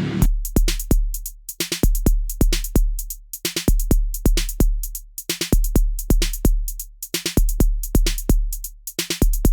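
Electronic background music: a programmed drum-machine beat of sharp hits over deep bass kicks.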